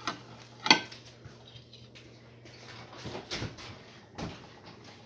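Kitchen handling noises while food is being served: a sharp knock about half a second in, then softer knocks and clatter in the second half.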